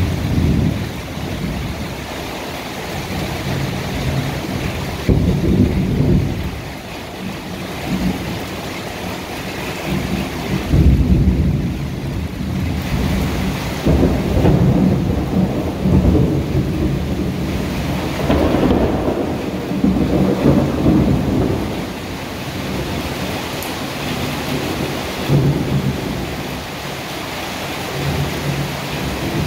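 Heavy tropical rain falls steadily while thunder rolls again and again in low rumbles. The longest roll rumbles on for several seconds in the middle.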